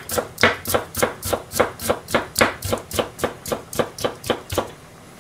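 Kitchen knife slicing a carrot on a plastic cutting board: a quick, even run of blade knocks on the board, about four to five a second, stopping near the end.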